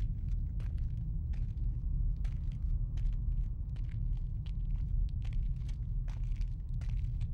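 A low, steady rumbling drone from the film's night-street soundtrack, with faint, irregular clicks and crackles scattered over it.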